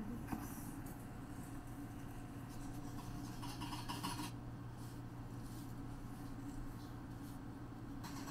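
Intermittent soft scraping and rubbing of handling over a steady low hum.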